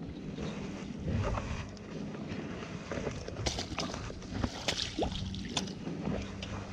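Water splashing and sloshing as a hooked pike is drawn into a landing net beside a float tube. Scattered clicks and knocks come from the rod, reel and net, most of them in the second half.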